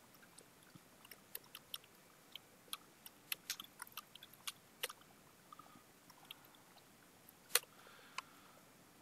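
Computer keyboard keys clicking faintly at an irregular pace as a line of code is typed, with one sharper click about 7.5 seconds in.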